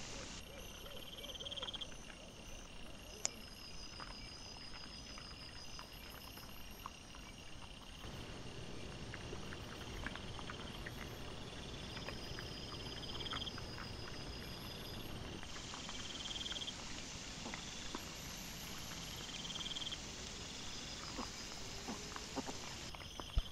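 Night insects trilling in short, repeated pulsed chirps, with faint scattered clicks and rustles of wild boar moving over leaf litter, heard through a trail camera's microphone. The background shifts abruptly a few times.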